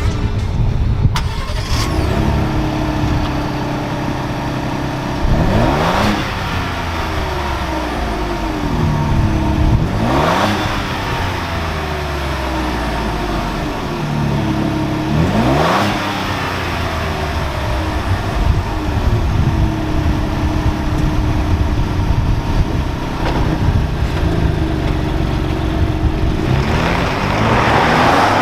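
2021 Ford Bronco's 2.7-liter twin-turbo V6 running through a Thermal R&D 3-inch cat-back exhaust with a Helmholtz rear chamber. It idles and is revved three times, a few seconds apart, each rev rising and falling back, and it climbs again near the end.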